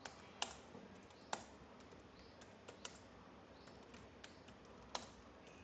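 Faint computer keyboard typing: keys tapped at an uneven pace, a few sharper clicks standing out among softer ones.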